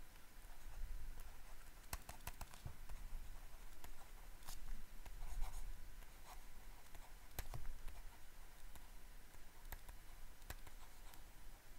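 Stylus handwriting on a tablet: faint scratching strokes with scattered sharp taps and clicks.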